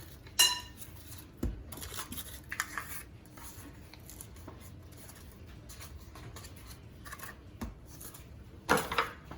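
Kitchen utensils and dishes handled on a worktop: a sharp ringing clink about half a second in, then scattered light taps, knocks and rustles.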